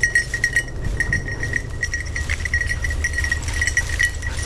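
A bird dog's collar bell jingling in quick, irregular rings as the dog works through brush, over a steady low rumble.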